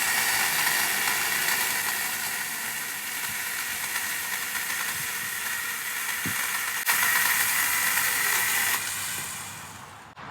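STIHL GTA 26 battery garden pruner (a mini chainsaw) running with a steady high whine. It gets louder about seven seconds in, then winds down and stops near the end.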